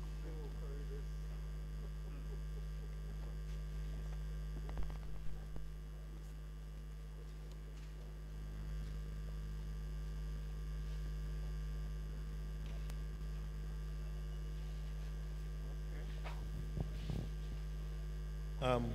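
Steady electrical mains hum on the sound feed, with a few faint knocks about five seconds in and again shortly before the end.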